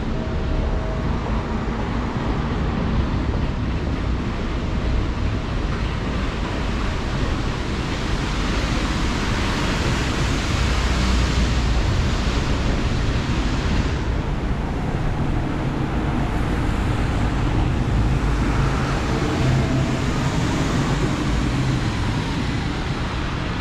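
City street traffic on wet roads: tyre hiss swells and fades twice as vehicles pass, over a steady low rumble.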